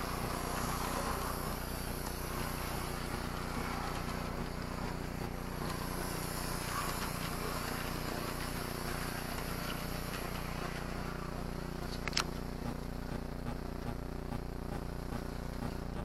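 OO gauge model train running on the layout: a steady motor hum with wheel and track noise, and one sharp click about twelve seconds in.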